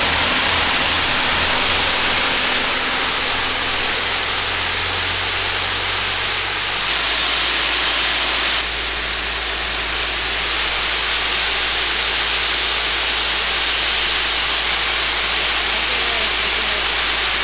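Ultra-high-pressure water jet blasting from a hand-held lance nozzle at its lowest pressure setting: a loud, steady hiss. The pump unit's engine hums low underneath, drowned out by the water.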